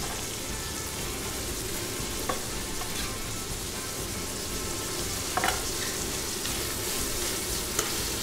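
Onion, garlic and bell peppers frying in olive oil in a cataplana, a steady sizzle as the aromatic base starts to brown. A utensil stirring them gives a few light clicks against the pan.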